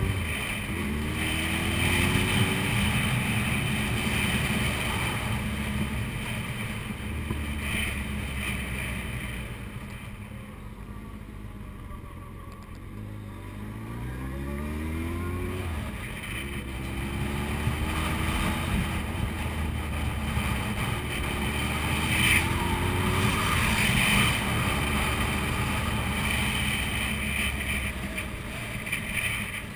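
Suzuki Hayabusa's inline-four engine on the move, revving up through the gears several times with the pitch climbing in each gear, easing off and quieter about a third of the way through. A steady rush of wind and road noise runs under it.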